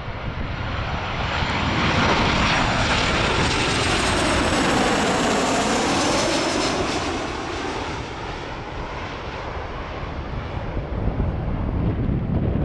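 Boeing 737-800 on final approach passing low overhead, the rushing whine of its CFM56 jet engines swelling to its loudest in the first half and sweeping in pitch as it passes, then fading as it moves away toward the runway.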